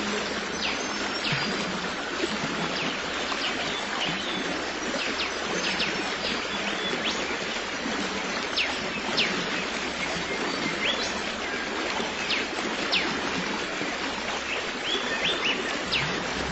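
Steady rush of flowing stream water, with short, high bird chirps scattered over it.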